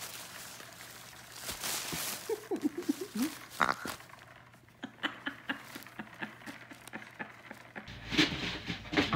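A small dog tearing and rooting through Christmas wrapping paper: papery rustling and crinkling with many short crackles. A short high squeak about three and a half seconds in.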